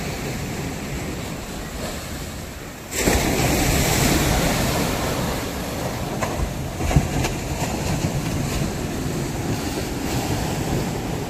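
Sea waves breaking and washing over the boulders and concrete tetrapods of a seawall, a steady surf noise that surges louder about three seconds in, with a few sharper splashes a little later.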